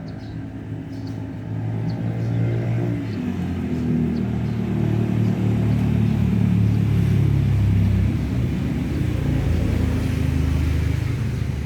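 A motor vehicle's engine running nearby, growing louder over the first few seconds and staying loud through most of the stretch before easing off slightly near the end.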